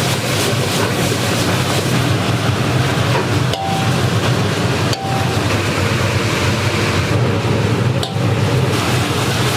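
Loud, steady roar of a commercial kitchen, with a low hum under it, broken by a few brief dips.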